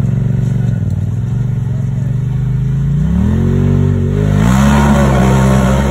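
Side-by-side UTV engine revving under load as it climbs a steep rock ledge. Its pitch rises in two steps, about three and four seconds in, and it is loudest near the end.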